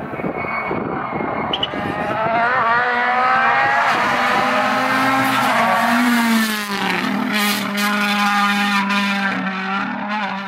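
World Rally Car's turbocharged engine at full throttle on a rally stage. The note climbs as the car comes on, drops sharply about six to seven seconds in as it passes, and a run of crackles follows as it goes away.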